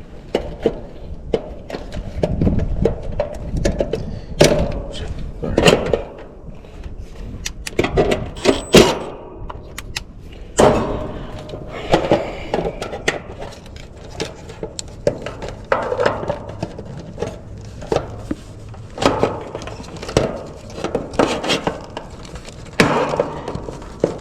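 Irregular clicks, knocks and rustles of hands moving wiring and fitting a clipped-on hard start kit inside an air conditioner's electrical compartment.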